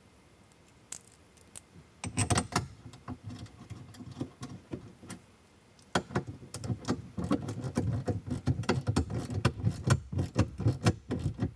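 Ratchet wrench clicking rapidly as a bolt on the dash bracket is turned, in two runs: a short one starting about two seconds in and a longer, denser one from about six seconds in.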